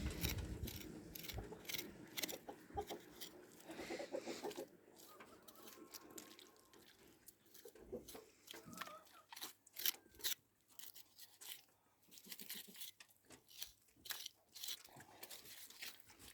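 Faint, irregular crunching and tearing as a knife cuts through a pig carcass's skin, fat and meat, with many short clicks spread unevenly.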